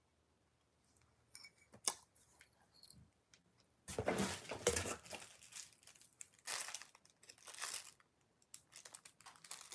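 A few light handling clicks, then from about four seconds in, bursts of crinkly plastic packaging being crumpled and torn open.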